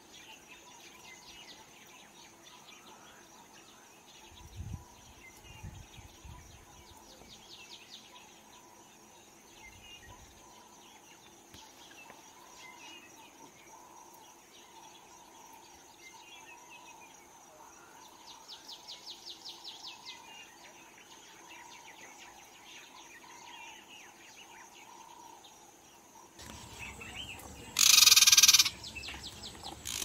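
Bush ambience: birds chirping and calling over a steady high insect hum, with two bouts of fast insect-like trilling, one about 7 s in and one about 18 s in. Near the end a much louder, harsh burst of noise briefly dominates.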